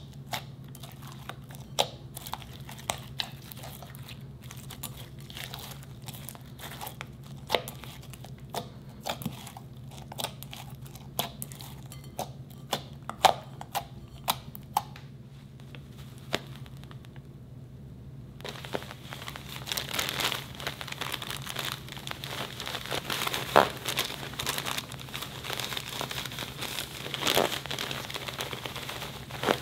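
Clear cola-coloured slime being pressed and poked by fingers in a glass bowl, giving scattered sticky pops and clicks. About two-thirds of the way in, a dense crinkling rustle begins as instant snow powder is shaken out of a plastic bag onto the slime.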